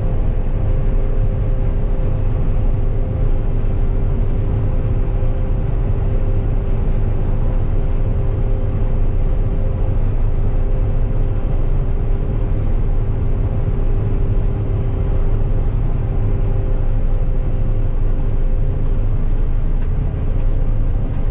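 Combine harvester running steadily while cutting soybeans: an even, low engine and machinery drone with a steady hum over it.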